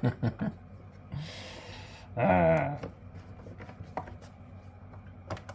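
A screwdriver clicking and scraping against a screw head on a metal equipment casing as it is tried for fit, with a few sharp taps. About two seconds in a man gives a short wavering hum, just after a breathy hiss.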